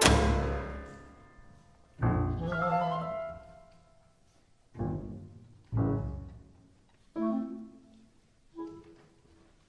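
Chamber ensemble of piano, winds and strings playing a series of sudden accented chords, about six of them, each ringing out and dying away before the next. The gaps between them are uneven, and the chords mostly grow softer toward the end.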